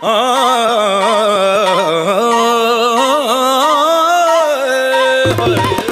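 Background music in an Indian classical style: one long melody line sliding and ornamenting in pitch, with drums and bass coming in about five seconds in.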